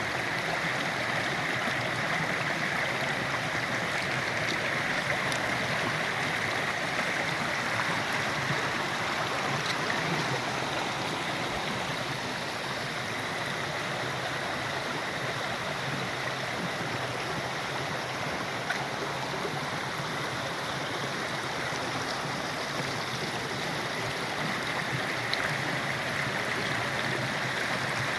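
Flowing stream, a steady rush of water.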